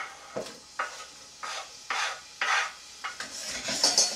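Chopped onion being scraped off a wooden chopping board with a wooden spatula into a saucepan of hot olive oil: a run of short scraping strokes, roughly one every half second.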